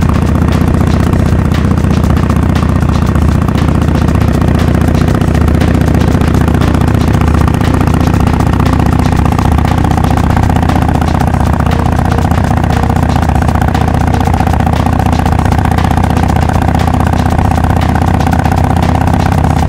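Harley-Davidson XL1200X Forty-Eight's air-cooled V-twin running at steady cruising revs through a Rinehart 3-inch slip-on exhaust fitted with quiet baffles. The exhaust note is loud and even, with no gear changes.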